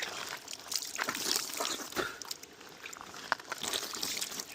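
Creek water trickling and splashing, with irregular short splashes and sharp knocks.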